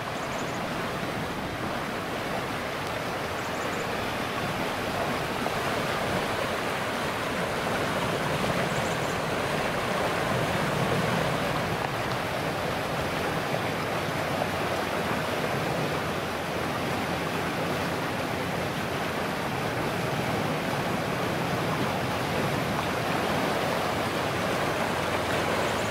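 Floodwater of the swollen Calapooia River rushing steadily through the trees and along a roadside ditch, in a continuous, even sound.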